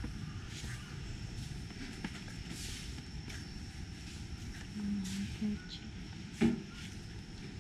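Footsteps on a tiled floor at an even walking pace over a low steady rumble, with a thin steady high tone behind them and one sharp knock about six and a half seconds in.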